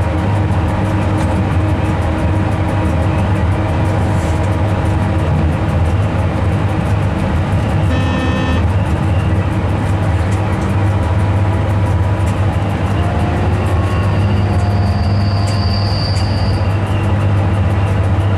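A moving train heard from inside the driver's cab: a steady, loud running hum and rumble. About eight seconds in there is a brief pitched tone, and near two-thirds of the way through a high thin whistling tone holds for a second or two.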